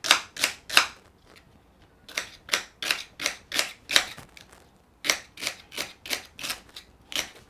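Chef's knife chopping celery on marble: a run of sharp knocks about three a second, with a short pause about a second in and another just past four seconds.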